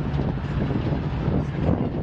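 GE Evolution Series diesel locomotive running with a steady low engine drone as it rolls slowly past, with wind noise on the microphone.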